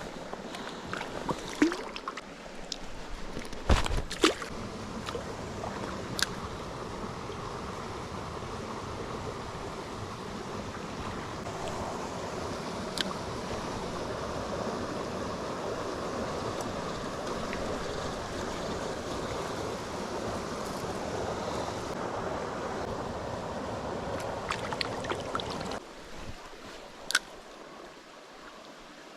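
Stream water rushing steadily, with a few sharp clicks and knocks scattered through it. The rushing drops away suddenly near the end, leaving a quieter trickle.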